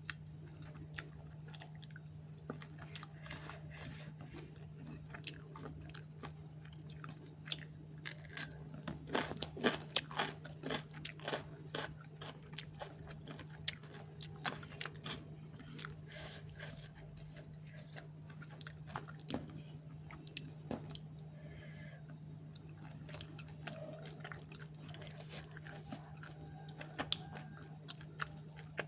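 A person chewing and crunching a meal of spicy chicken curry with rice and raw vegetables, close to the microphone: many short crisp crunches, busiest about a third of the way in. A steady low hum runs underneath.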